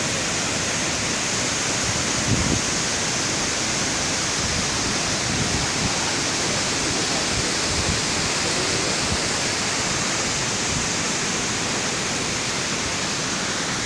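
Waterfall: a steady rushing of falling water, with a brief low thump about two seconds in.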